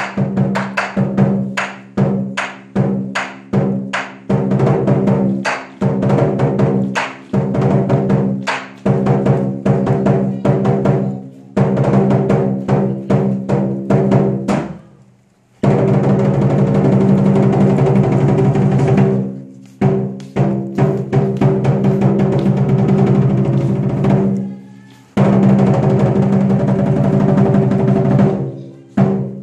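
Lion dance percussion ensemble: a big Chinese drum beating a driving rhythm, with ringing cymbals and gong sustaining over it. It breaks into a fast continuous roll about halfway through and again near the end.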